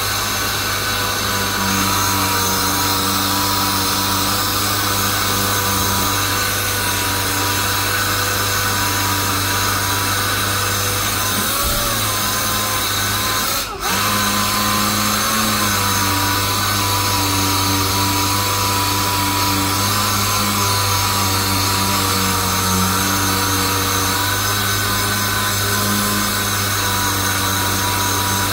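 Random orbital sander with a dust-extraction hose running steadily as it sands the paint on a car's rear quarter panel, with a constant whine over a low hum. It cuts out for an instant about halfway through and starts again.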